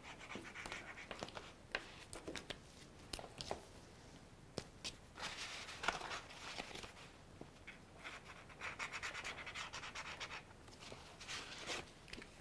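Faint scratching of a pen tip on a small piece of paper in short drawing strokes, with a few light clicks.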